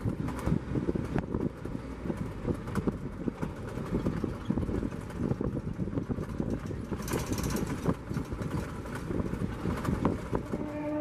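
Safari vehicle driving over rough ground: steady low rumble from the engine and track, with frequent rattles and knocks.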